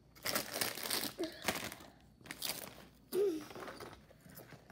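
Plastic snack-chip bag of Chester's Fries crinkling as it is handled and a hand reaches in, dense rustling for about two seconds, then sparser. A short vocal sound about three seconds in is the loudest moment.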